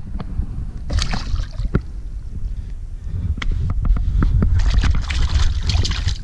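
Lake water splashing and sloshing at the side of a small boat as a smallmouth bass is released and a hand swishes through the water. There is a splash about a second in and heavier splashing in the last couple of seconds.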